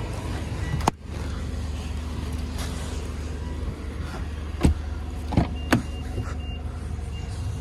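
Car doors of a Mitsubishi Outlander PHEV being handled: a sharp knock about a second in, then three louder clacks and knocks around the fifth and sixth seconds as the rear door is unlatched and swung open. Under them runs a steady low hum, and a few short high beeps sound near the end.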